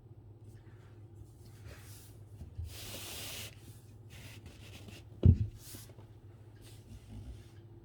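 Calligraphy brush strokes swishing across paper: several short strokes and one longer stroke about three seconds in. A single dull knock comes just past five seconds and is the loudest sound, over a steady low hum.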